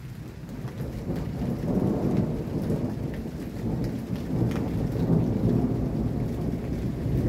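Thunder rumbling low and long, swelling over the first two seconds and rolling on, over steady rain falling.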